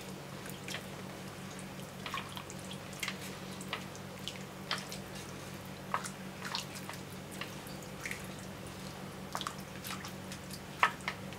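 Chopsticks stirring rice and chicken in broth in a stainless steel pan: small wet splashes and light taps against the pan, scattered unevenly, with two sharper clicks near the end. A low steady hum runs underneath.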